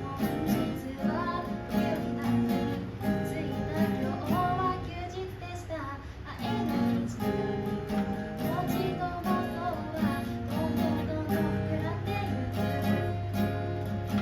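Acoustic guitar strummed in a steady rhythm, with a voice singing a melody over it: a song sung to its own guitar accompaniment.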